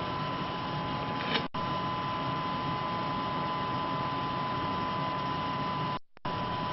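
Steady hiss with a thin steady tone in the audio of the HamTV video downlink from the International Space Station, cutting out briefly twice, about a second and a half in and again near the end.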